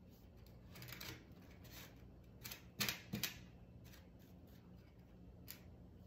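Soft strokes of a paintbrush on a parrot carving, with two sharp clicks close together about three seconds in, over a faint steady hum.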